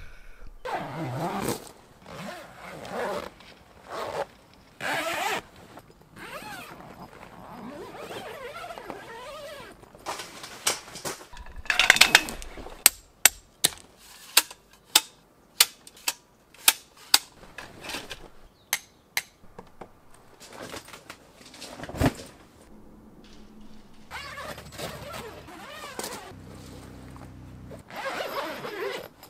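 Rustling handling noises, then a run of about fifteen sharp knocks or clicks at two to three a second in the middle, and a faint low hum near the end.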